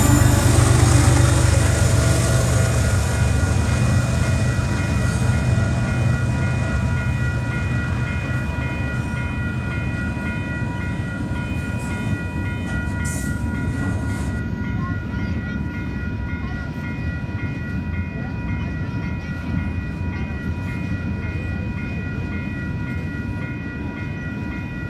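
A Canadian Pacific GE ES44AC diesel locomotive passes close by, its engine rumble strongest at the start and fading over the first ten seconds. Double-stacked container cars follow with steady rolling wheel noise, while a grade-crossing warning bell rings throughout.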